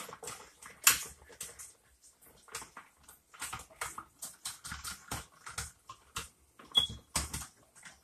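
Irregular clicks, scrapes and rustles of electrical wires and a hand tool being worked at a plastic electrical box in a stud wall. There is a sharp knock about a second in and a brief squeak near the end.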